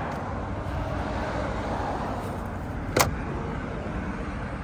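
Steady road-traffic noise with one sharp click about three seconds in: the hood latch of a 2022 Ford Bronco being released as the hood is lifted.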